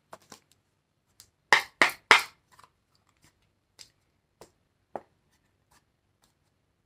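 Tarot cards being shuffled by hand, overhand: short crisp card slaps and flicks. Three louder ones come close together about a second and a half in, then a few fainter single ticks.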